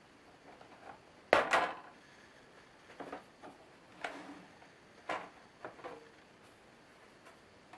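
Plastic bottom cover of an Asus K75VJ laptop being pried off, its clips snapping loose: a loud double snap about a second and a half in, then five or six lighter clicks and knocks as the panel comes away.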